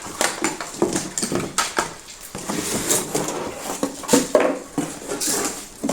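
Plastic vacuum cleaner parts and packaging being handled: a run of rustles, clicks and light clatters.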